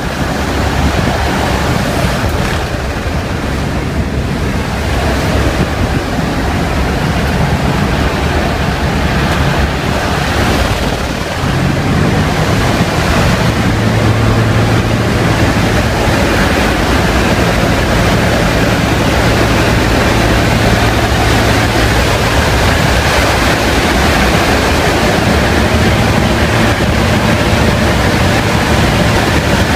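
Loud, steady rush of wind through the open side door of a GippsAero GA8 Airvan in flight, over the drone of its piston engine. From about twelve seconds in, a low engine hum comes through more clearly.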